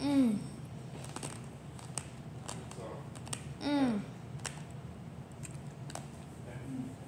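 Hard sugar-shelled strawberry (tanghulu) being chewed, its candy shell crunching in small irregular clicks, with two short falling 'mmm' hums of enjoyment, one right at the start and one about halfway through.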